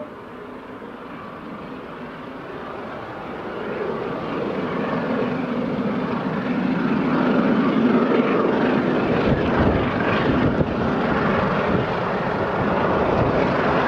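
Peppercorn A1 Pacific steam locomotive 60163 Tornado running hard at speed with a passenger train, its exhaust roar growing louder as it approaches and loudest from about eight to eleven seconds in.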